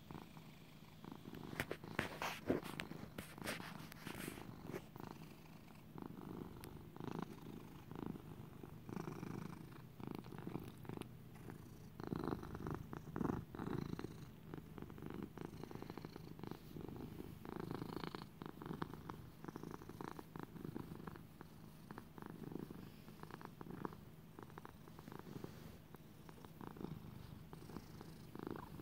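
Domestic cat purring close up, a continuous low purr rising and falling in a steady rhythm.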